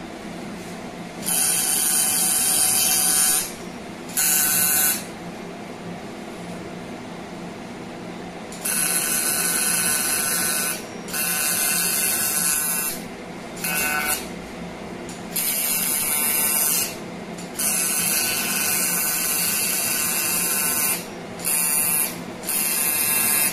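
Thulium fiber laser firing in about ten bursts of under a second to a few seconds each, a loud high buzzing hiss as the fibre tip in water breaks kidney-stone fragments down to dust. A steady low hum runs underneath between bursts.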